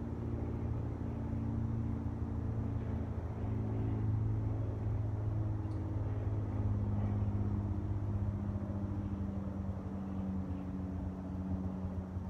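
A low, steady engine drone with several humming tones, one of which slides slightly lower about halfway through.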